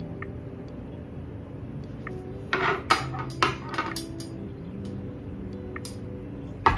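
Black metal wire book stand clinking and rattling as it is handled and fitted together, with several metal clinks in a cluster from about two and a half to four seconds in. A sharper knock comes near the end as it is set down on the stone countertop.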